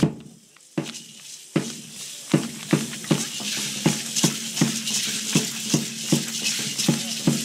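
A single drum struck in a steady pulse, about two and a half beats a second, with a constant hiss of shaken hand rattles over it, accompanying a dance.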